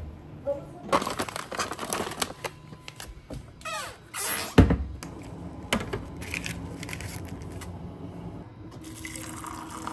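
Packaging crinkling and tearing, with many small clicks and one strong knock about halfway through. A faint steady hum comes in near the end.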